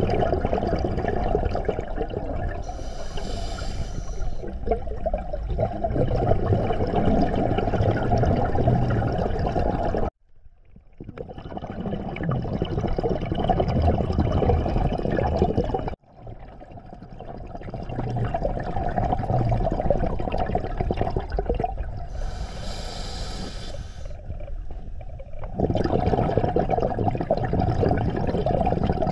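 Underwater noise picked up through a diving camera's housing: a steady low rumble of water. Two short bursts of hiss come about three seconds in and again about twenty-three seconds in. The sound cuts out abruptly about ten and sixteen seconds in, then swells back.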